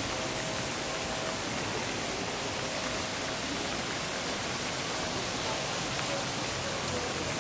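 Steady rushing splash of water from a pool fountain, with a faint hum that comes and goes behind it.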